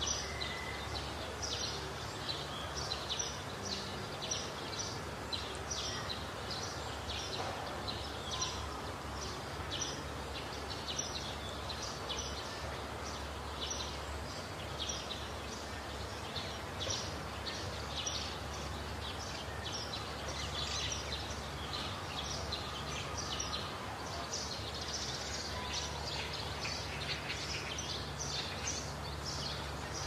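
Outdoor savanna ambience: short, high chirps repeat about twice a second throughout, over a steady low rumble.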